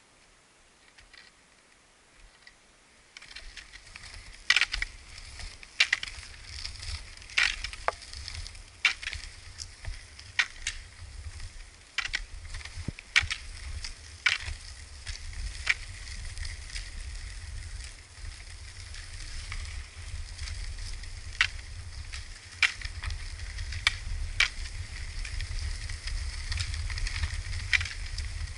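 Cross-skates' pneumatic tyres rolling over loose gravel with a crunching hiss and a low rumble, starting about three seconds in after near silence. Sharp clicks come about every second and a half as the ski-pole tips strike the gravel.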